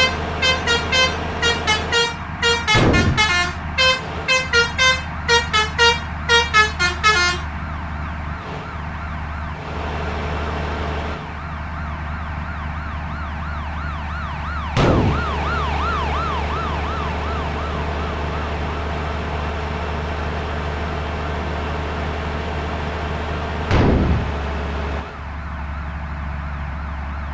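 Indonesian 'telolet' musical bus horn playing a quick string of short tooting notes for about seven seconds, then a warbling siren-like tone, with a steady low engine hum underneath.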